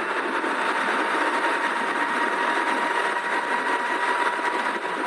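E-bike's stock hub motor whining steadily at full throttle on a 72 V controller, under a steady rush of wind and tyre noise at high speed.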